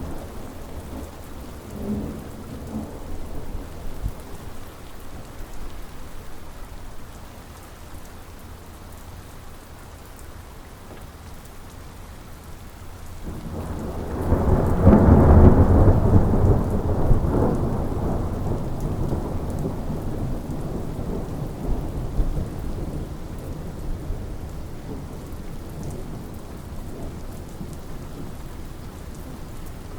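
Thunderstorm: steady rain falling, with a faint rumble of thunder about two seconds in and a long, loud roll of thunder that builds about halfway through and fades slowly.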